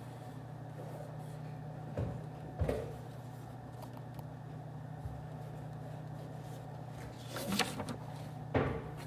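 Office room ambience: a steady low hum with a handful of short knocks and clunks, two about two to three seconds in, and a small cluster and a sharper knock near the end.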